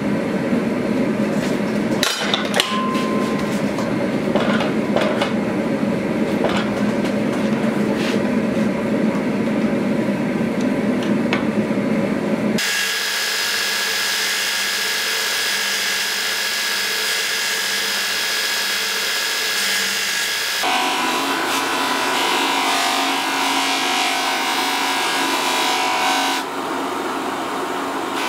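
Workshop machine sounds in three stretches: first a steady machine hum with scattered sharp metal clicks and knocks; then, about halfway through, a small metal handle fitting ground on a running belt grinder, a steady bright hiss; then, for the last third, the fitting buffed on an electric polishing wheel, a steady motor hum with a whine.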